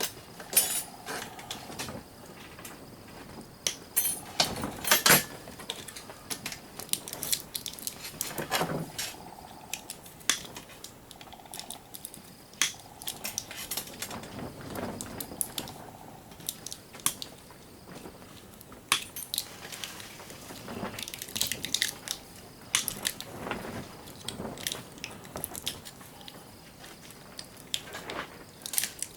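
Irregular clicks, clinks and crunches of a plastic surge protector being pulled apart by hand, with its small brass and metal parts knocking together. The louder knocks come about four to five seconds in and again near nine seconds.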